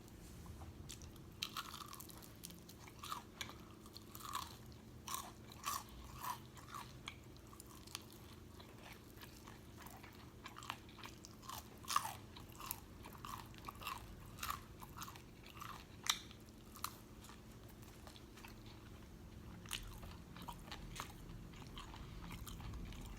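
Close-up chewing and biting of crunchy food: a string of short, sharp crunches through the first two-thirds, thinning to a few near the end, over a faint steady hum.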